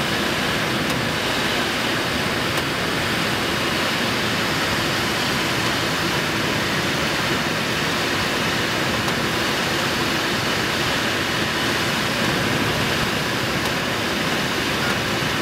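Steady rush of air over a glider in flight, heard inside the cockpit with no engine running.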